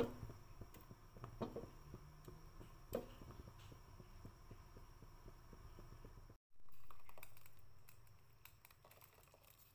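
Pot of shrimp stock at a boil, bubbling faintly, with three soft plops in the first three seconds as lumps of belacan (shrimp paste) are dropped in. After a brief break in the sound, a spoon stirs the liquid in the pot.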